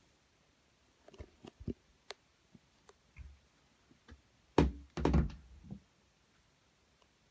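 A few light knocks and clicks, then a loud thump about four and a half seconds in, followed by a quick cluster of thuds.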